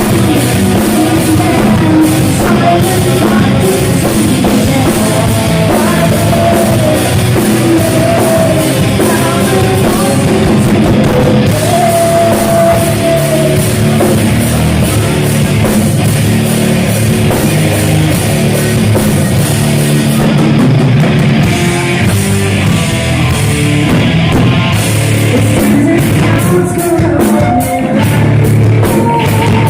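A heavy metal band playing live, loud, with distorted guitars, drums and sung vocals.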